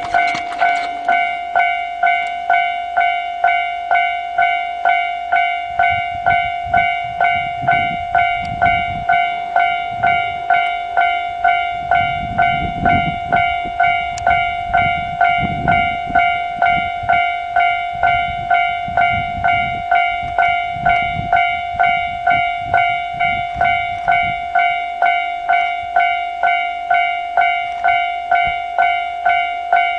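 Level-crossing warning bell ringing steadily, about two strikes a second. A low rumble from the approaching snowplow train swells and fades through the middle.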